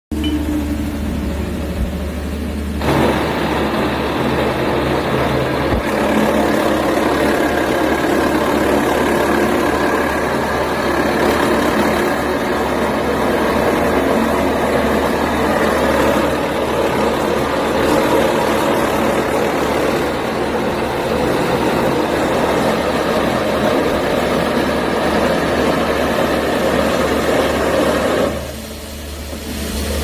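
Mini water-borehole drilling rig running, its drill rod turning down into the ground over a steady low engine hum. The drilling noise grows louder about three seconds in and eases off near the end.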